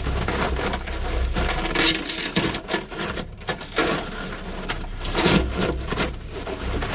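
Brittle, dried-out rubber intake hose being torn and scraped off an aluminum intake elbow by a gloved hand, a dense crackling with a short lull about three seconds in.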